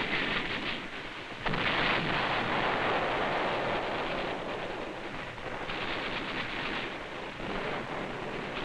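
Battle noise from a wartime combat film soundtrack: a steady, crackling rumble of distant gunfire and explosions that turns suddenly louder about one and a half seconds in.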